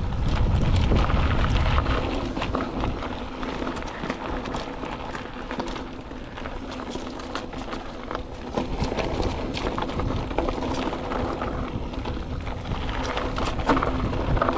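Mountain bike riding down a dirt single-track: wind buffets the microphone, tyres roll over the trail and the bike gives frequent clicks and rattles over bumps. The wind rumble is strongest in the first two seconds.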